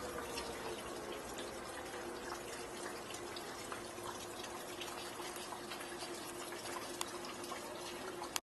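Outdoor warning sirens sounding over steady rain. One siren tone slides down in pitch near the start while another holds a steady note. Raindrops tick throughout.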